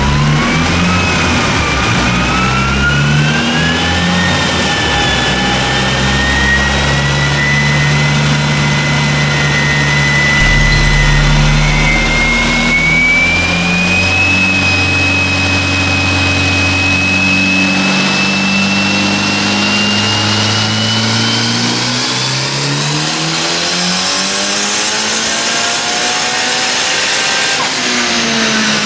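Turbocharged Mitsubishi 4G63T inline-four running under load on a dyno. The engine note holds and shifts in steps and rises again near the end, with a high whine climbing slowly in pitch throughout.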